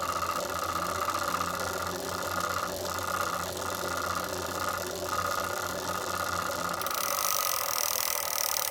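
Tacx Flux direct-drive smart trainer running with a steady whining, rattling drone over a low hum: a fault noise that has developed after about 150 km of use. About seven seconds in, the drone and hum stop and a higher hiss is left.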